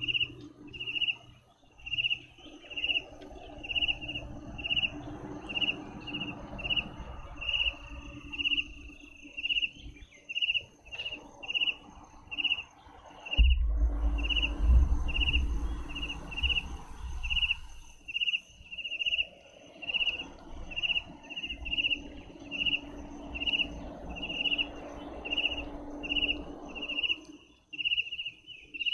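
A cricket chirping steadily, short chirps at one pitch, about two a second. About halfway through a low rumble comes in for a few seconds.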